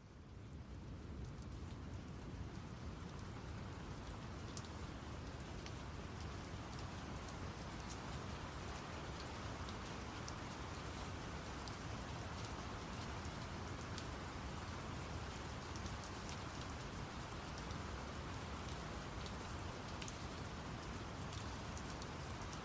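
Recorded rain layered with brown noise: a steady deep rushing hiss with scattered drop ticks, fading in over the first second.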